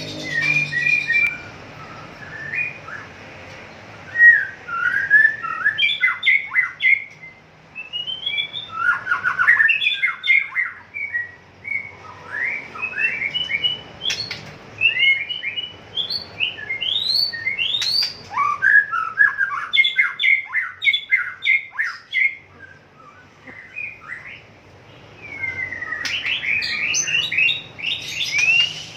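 White-rumped shama (murai batu) singing: varied phrases of quick whistled notes sweeping up and down, separated by short pauses.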